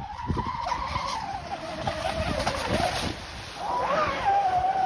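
Radio-controlled twin-hull catamaran boat's motor whining at speed, the pitch wavering and dipping, then jumping up sharply about four seconds in as the boat swings round near the buoys.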